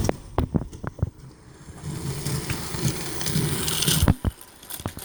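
Battery-powered toy train running round plastic track, its small motor whirring and wheels rattling as it passes close by, with several sharp clicks before and after.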